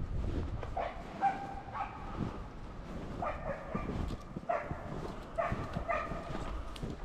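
Bird dog giving short, high, steady-pitched whines about once a second, excited while hunting grouse.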